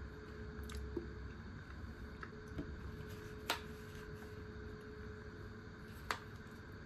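Plastic food containers being handled and picked up off the table, giving two sharp clicks, one about halfway through and one near the end, over a steady low hum.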